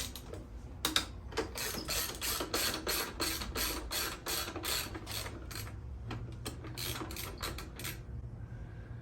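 Hand ratchet wrench clicking in quick runs as bolts are loosened and backed out. The clicking stops about a second before the end.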